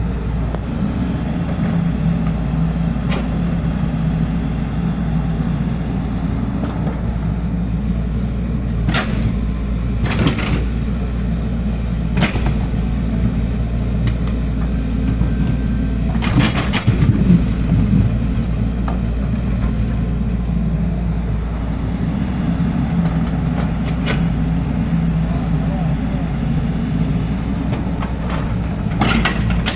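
Excavator's diesel engine running steadily, with scattered short knocks from the digging; the loudest cluster comes about two-thirds of the way through.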